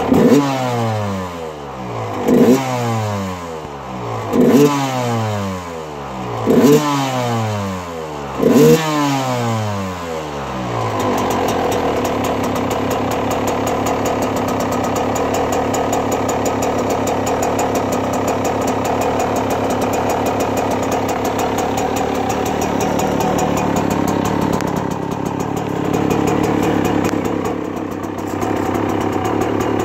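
All-stock 1997 Yamaha YZ125's single-cylinder two-stroke engine revved hard five times, about two seconds apart, each blip snapping up and falling back in pitch. After about eleven seconds it settles back to a steady idle.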